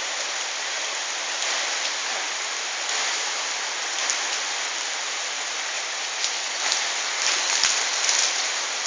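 Rain falling steadily, a dense even hiss, with a few sharp taps near the end.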